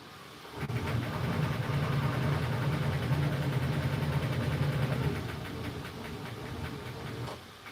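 3D printer's motors running hard in a steady, fast-pulsing hum. It starts about half a second in, drops to a lower level about five seconds in, and stops shortly before the end.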